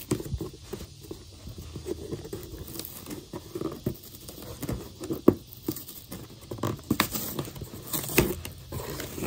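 Fingers scratching and picking at the taped seam of a cardboard shipping box and tearing at the tape and cardboard edge: irregular scrapes and crackles, with a few sharper snaps in the second half.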